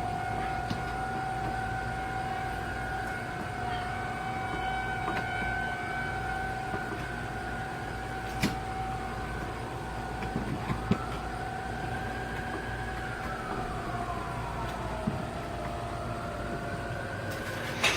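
Federal Signal 2001-SRN electromechanical warning siren sounding a steady single-tone wail. In the last few seconds its pitch sinks as it winds down.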